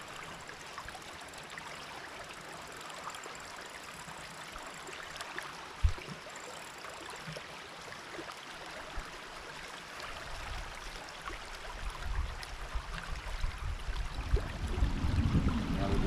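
River water running over shallows, a steady rushing and rippling. A single sharp knock about six seconds in, and a low rumble building over the last few seconds.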